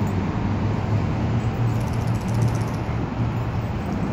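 Steady low rumble of city traffic and engines.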